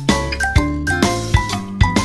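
Cheerful music: a bright, tinkling bell-like melody of short notes over held bass notes and a light, regular beat.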